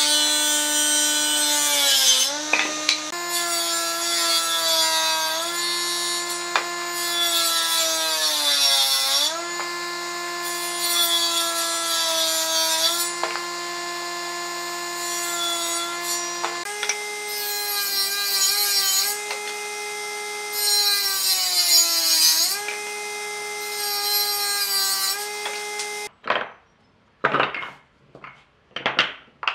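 Electric woodworking power tool cutting wood. The motor whines steadily, its pitch sagging briefly each time it takes load, while the hiss of the cut comes and goes. The motor stops near the end, followed by a few short, sharp sounds.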